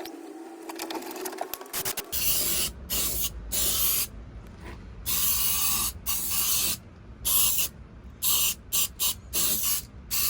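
Aerosol can of etch primer spraying in a series of short hissing bursts with brief pauses between them, starting about two seconds in.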